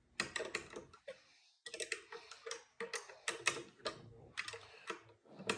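Small metal parts being handled: irregular light clicks and taps as a Model A Ford control arm, deep socket and pin are lined up on the spark and throttle rod, with a brief pause about a second in.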